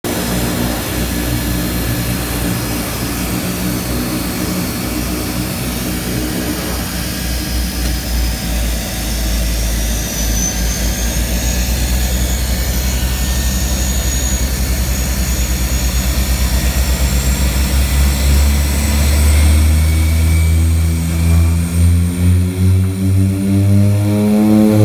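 De Havilland Canada DHC-6 Twin Otter floatplane's Pratt & Whitney PT6A turboprop engine and propeller running steadily, a high turbine whine over a low propeller drone. Over the last few seconds the pitch climbs and the sound grows louder as the engine spools up.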